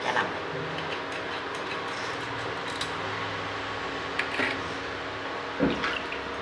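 Kitchen knife scraping and cutting mackerel over a steel sink, heard as a few short scrapes and knocks over a steady background hum. A louder dull thump comes near the end.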